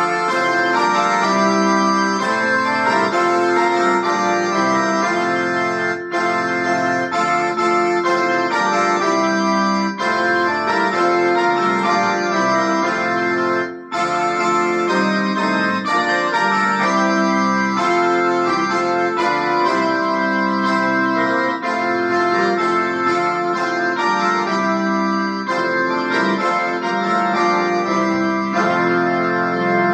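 Keyboard played with an organ sound: long held chords and notes that run on in phrases, with short breaks between them, the deepest about halfway through.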